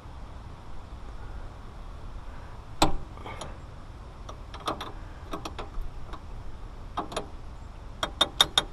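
Sharp metallic clicks and clinks of a wrench against hydraulic fittings: one loud clink about three seconds in, scattered clicks after, and a quick run of about five clicks near the end.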